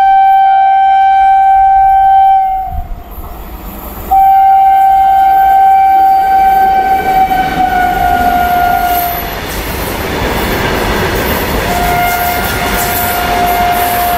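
Indian Railways WAG-7 electric locomotive's horn sounding two long blasts as it approaches, the second one dropping slightly in pitch as the locomotive passes. Then the freight wagons roll by with a rumble and wheel clatter, and a horn sounds again, steady and a little lower, near the end.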